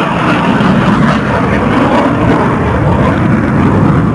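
Loud, steady jet noise from an F-16 fighter flying overhead.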